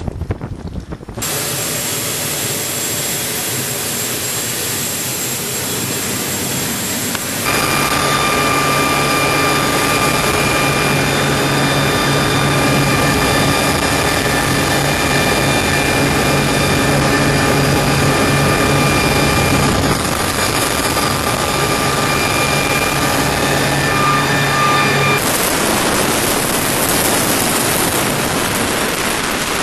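Mil Mi-26 twin-turboshaft heavy helicopter in flight, heard from inside the cabin: loud steady turbine and gearbox whine over rotor and airflow noise. The sound shifts abruptly a few times, at about one second, seven seconds and twenty-five seconds in.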